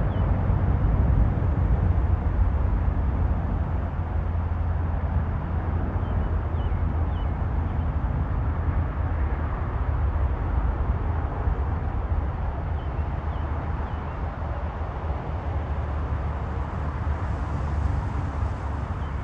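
Aircraft engine running at a distance, a steady low rumble that slowly eases off, with a few faint short chirps every few seconds.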